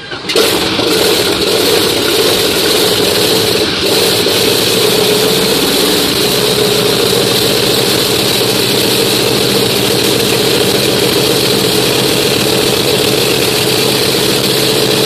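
Pratt & Whitney R-4360 Wasp Major, a 28-cylinder four-row radial aircraft engine, bursts into loud running a moment in and then runs steadily. It is a fresh start, with white exhaust smoke pouring from the engine.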